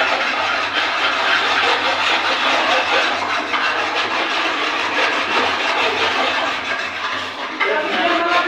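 Several hand files rasping on metal workpieces at once, their strokes overlapping into continuous scraping.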